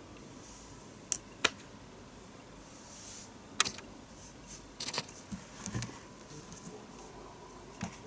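Hands handling product packaging: a few sharp clicks and taps, with brief rustles and soft knocks between them.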